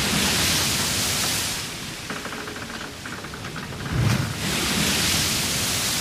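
Sea water rushing and splashing along the hull of a large ship under way, in surges: the first swell of rushing water fades after about a second and a half, and a second one starts about four seconds in with a low thud.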